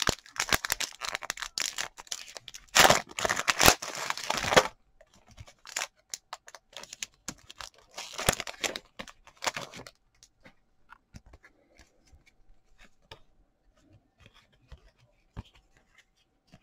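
A trading-card pack wrapper being torn open with crinkling rustles, then a second burst of rustling. After that come only faint sparse clicks of cards being handled.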